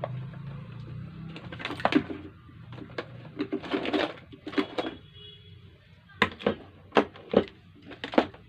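Clicks, rattles and clatter of small parts and tools being handled while the sewing machine foot pedal is opened up and its contact strip checked. A busy stretch of clattering in the middle, then about five sharp separate clicks near the end.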